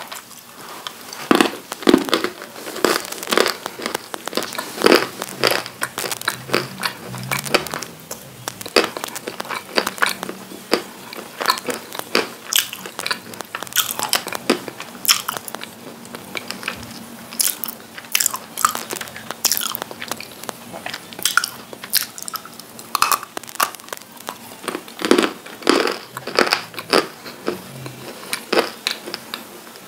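Close-miked biting and chewing of hard, chalky grey lumps of edible clay: sharp, dry crunches, one every second or so, with softer chewing and mouth sounds between bites.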